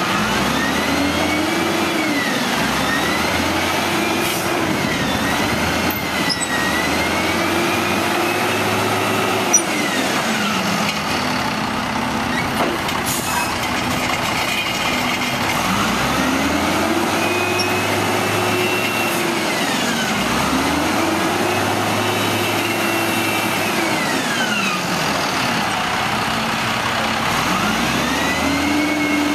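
WHITEGMC Xpeditor WX-42 roll-off truck's diesel engine revving up, holding, and dropping back again and again, with a steadier lower stretch in the middle, as it drives the hoist winching a loaded roll-off container up onto the truck.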